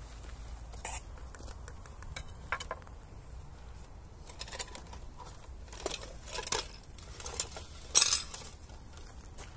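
Cooking utensils and dishes being handled, with scattered light clinks and knocks, about nine in all; the loudest knock comes about eight seconds in.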